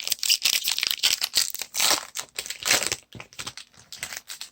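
Wrapper of a baseball card pack being torn open and crinkled. Dense crackling is loudest for about the first three seconds, then thins to lighter rustles and clicks.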